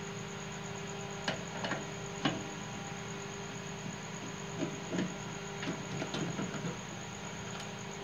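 Screwdriver clicking and knocking against the microwave's metal chassis while the magnetron is being unscrewed for removal: a scatter of small, irregular clicks over a steady low hum.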